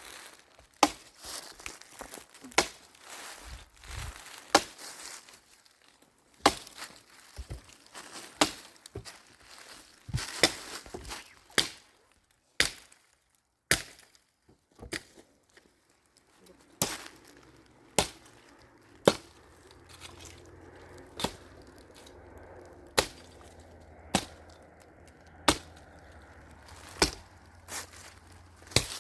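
Repeated sharp blows of a hand tool, such as chopping or hammering during building work, coming roughly once a second with a short pause in the middle. A low steady hum joins in about halfway through.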